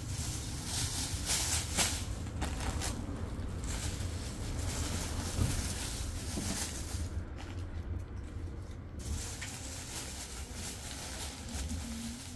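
Thin plastic carrier bag rustling and crinkling in irregular bursts as items are packed into it, over a steady low rumble.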